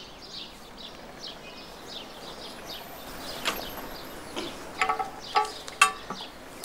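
Outdoor garden ambience with small birds chirping repeatedly over a faint steady background, and a few louder short sounds about five seconds in.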